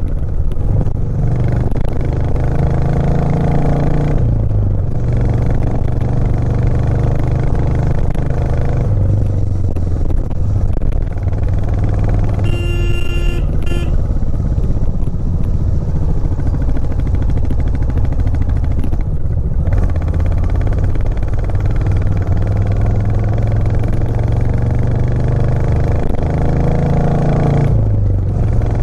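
Royal Enfield Classic 350's 349 cc single-cylinder engine running hard under load while riding uphill, its pitch climbing and then dropping at each of several gear changes. A short horn beep sounds about halfway through.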